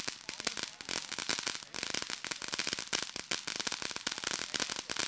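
Consumer firework fountain crackling and hissing: a rapid, dense stream of small pops over a steady spray hiss.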